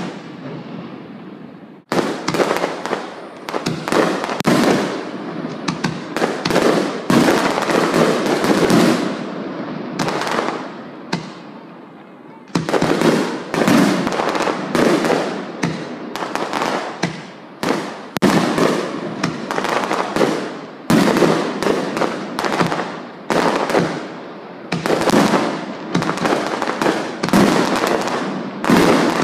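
Aerial firework shells bursting: a dense run of loud bangs, many overlapping, each trailing off in a rumbling decay, with a brief lull about eleven seconds in before the barrage resumes.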